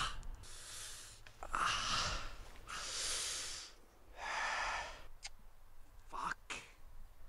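A man breathing hard in heavy, pained gasps, about five loud breaths with short pauses between them.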